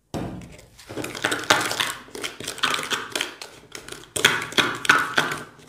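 A spoon stirring and scraping a wet, gritty paste of sand, sawdust and Fevicol glue in a small plastic bowl, in quick irregular scrapes with a brief pause about four seconds in.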